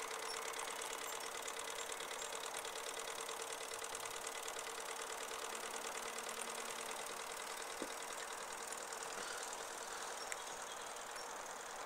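Small single-cylinder model steam engine running steadily and fast, a quick even beat of exhaust chuffs over a steady hum. It is running unloaded, the boat out of the water and its propeller turning in air.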